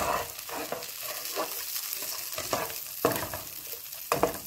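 Butter sizzling in a skillet with whole garlic cloves and rosemary sprigs, while a spatula stirs and scrapes against the pan in several short strokes.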